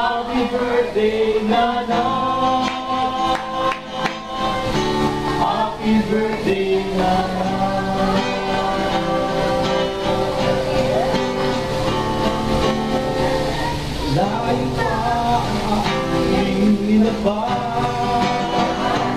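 A mixed group of a woman's and men's voices singing a song together to an acoustic guitar.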